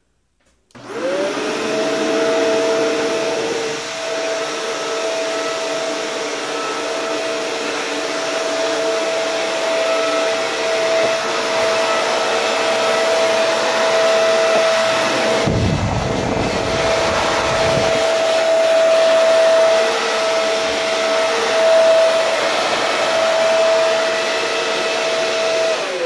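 Shark Rotator NV752 upright vacuum cleaner switched on in its hard-floor mode. It spins up about a second in, then runs steadily with a high motor whine over the rush of suction while being pushed over a hard floor. A low rumble comes in about two-thirds of the way through.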